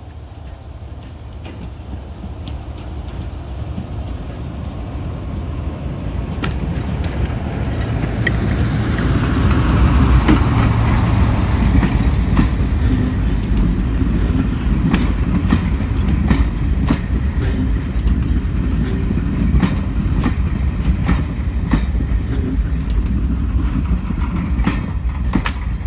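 Class 03 diesel shunter with its Gardner eight-cylinder engine approaching, growing steadily louder and passing about ten seconds in with a falling whine. Three BR Mark 2 coaches then roll slowly past, their wheels clicking over rail joints.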